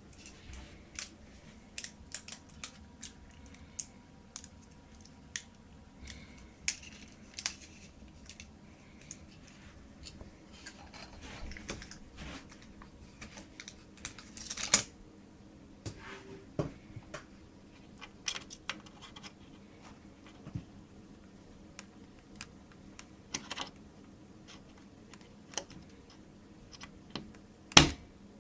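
Scattered small clicks and crackles of a coin-cell battery being taken out of its packaging and handled. Near the end comes one sharp, loud click as the coin cell is pressed into the motherboard's CMOS battery socket.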